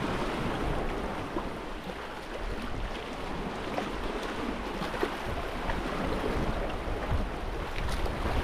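Small waves washing steadily over a rocky shoreline, with wind buffeting the microphone.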